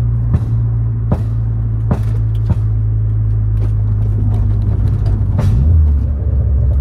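Turbocharged Vectra 2.2 16v engine running under way, a steady low drone heard inside the cabin, with a few sharp knocks through it. About five and a half seconds in the drone drops lower in pitch.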